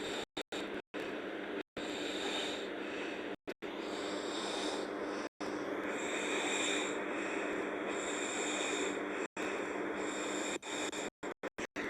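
A sleeping girl snoring hard: slow, noisy breaths that swell and fade every second or two. The sound cuts out abruptly to silence several times, most often near the end.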